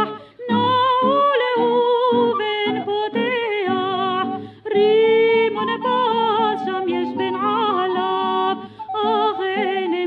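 A woman sings a Hebrew song in an ornamented Middle Eastern-style melody, with wavering, melismatic notes, over instrumental accompaniment. There are short breaks between phrases near the start and about halfway through.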